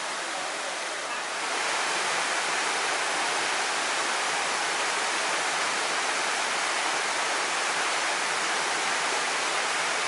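Steady rushing of a small waterfall, the stream pouring down through a hole in the rock. The rushing grows louder about a second and a half in.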